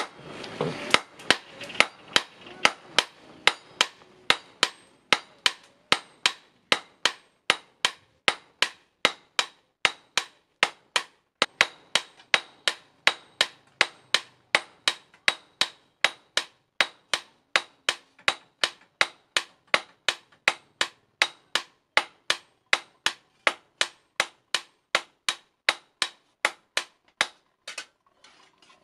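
Hand hammer forging a hot steel blade blank on a steel post anvil: sharp metal-on-metal blows, each ringing briefly, at a steady pace of about two a second, with a short pause near the end.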